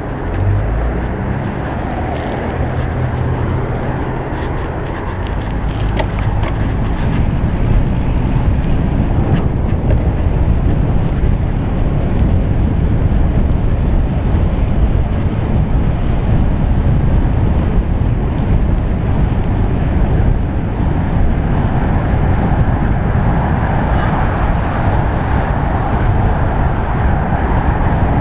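Wind buffeting the microphone of a chest-mounted action camera on a moving road bicycle, mixed with tyre and street traffic noise. It grows louder about seven seconds in, and a few light clicks come between about six and ten seconds in.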